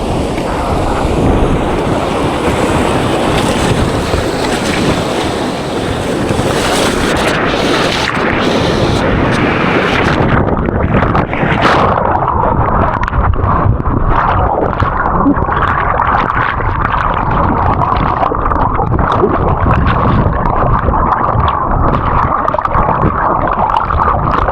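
Fast whitewater rapids rushing and splashing around a kayak, loud and continuous, with wind buffeting the microphone. About ten seconds in the sound suddenly turns muffled and dull, losing its hiss.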